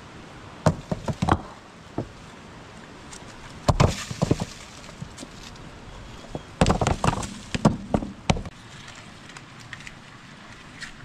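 Rocks knocking against each other as loose stones are lifted and shifted on a rubble pile: several clusters of sharp clacks with short pauses between.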